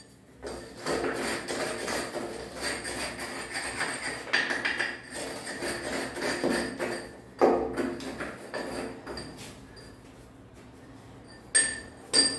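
Steel chisel worked by hand against broken concrete and wall tile: a dense run of scraping and chipping, then a few separate sharp knocks, one about seven seconds in and two near the end.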